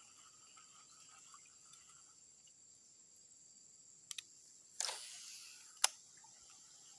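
Insects chirring steadily, with a couple of quick clicks about four seconds in, a short rushing sound that fades over a second just before five seconds, and one sharp click near the end.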